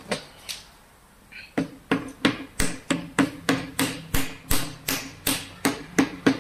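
Hammer tapping the small round cap over the countershaft bore into a Mahindra Bolero Camper gearbox housing, seating it. Two light taps, then a steady run of sharp strikes at about three a second from about a second and a half in.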